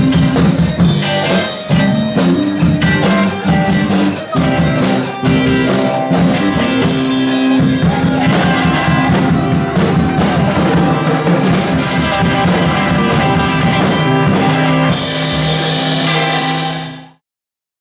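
Live rock band playing an instrumental passage on drum kit and guitar, with loud cymbal crashes about a second in, around seven seconds in and again near the end; the sound cuts off suddenly near the end.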